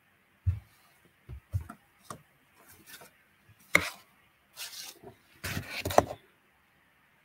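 Irregular soft knocks and clicks with a few brief rustling noises, spread unevenly over several seconds, the longest ones near the middle and towards the end.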